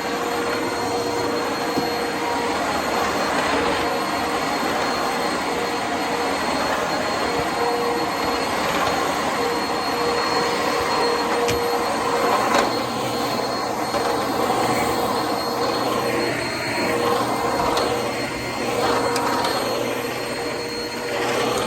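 Eureka Whirlwind Plus upright vacuum cleaner running steadily while vacuuming, a broad motor rush with a steady whine, wavering somewhat in its second half.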